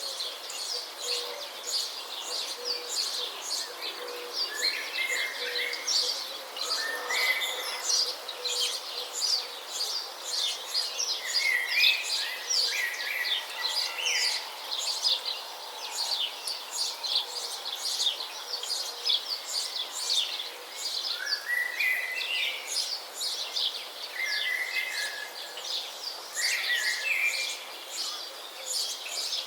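Many birds chirping together in a dense, continuous chorus of rapid high chirps, with short lower phrases breaking in every few seconds.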